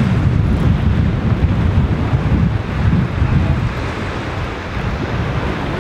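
Wind buffeting the camera microphone, a loud low rumble that swells and eases, over the steady wash of surf on the beach.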